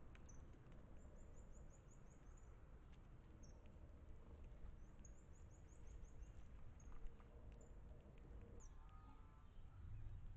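Faint, very high-pitched chirping calls of small birds: two quick runs of about eight thin notes each, with scattered single chirps between, over a low background rumble.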